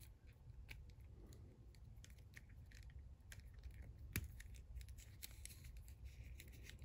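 Faint small clicks and scratches of a plastic action figure and its thin staff accessory being handled as the staff is worked into the figure's hand, with one sharper click about four seconds in.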